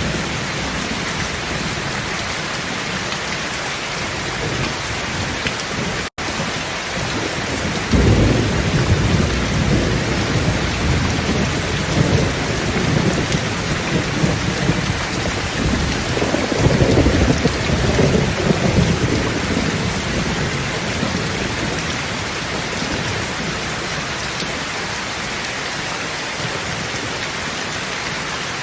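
Thunderstorm: steady heavy rain hiss, with rolling thunder rumbles coming in about a quarter of the way through, peaking around the middle and fading after. A split-second gap cuts the sound out shortly before the first rumble.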